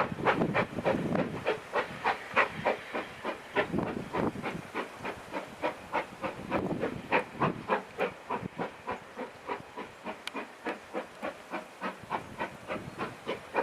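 Steam locomotive working hard, its exhaust chuffing in steady, even beats about three a second, with steam hissing between the beats.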